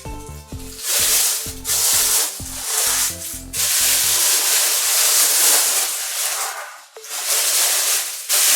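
Packaging rustling and rubbing as statue parts are lifted and unwrapped from their box. Background music with a stepped bass line plays under it and drops out about four seconds in.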